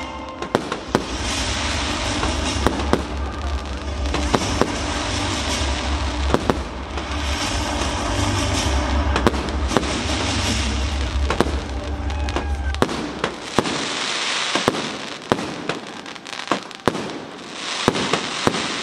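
Fireworks display: a dense run of sharp bangs and crackling from bursting aerial shells. Music with a heavy bass plays under it and stops about two-thirds of the way through.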